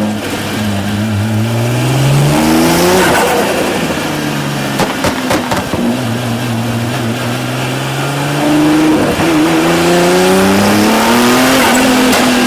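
Tuned Nissan GT-R R35's twin-turbo 3.8-litre V6 accelerating through the gears, its pitch climbing, dropping briefly on shifts. About five seconds in, on a lift-off, there is a burst of sharp crackles and pops from the flame-tuned exhaust. It then pulls again in a long rise.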